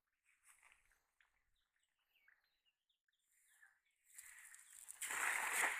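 Faint bird chirps, then a hand-thrown cast net landing on pond water: a splash that builds from about four seconds in and is loudest near the end.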